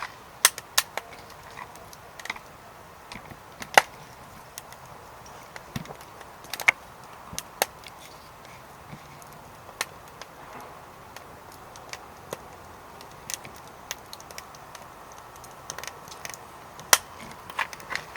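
Wood fire burning in a secondary-combustion fire pit, crackling with irregular sharp pops over a faint steady hiss.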